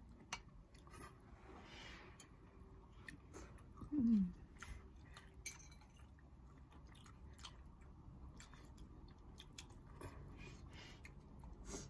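Close-up eating sounds of spicy instant noodles: soft chewing, slurping and scattered small clicks, with one short, loud voice sound falling in pitch about four seconds in.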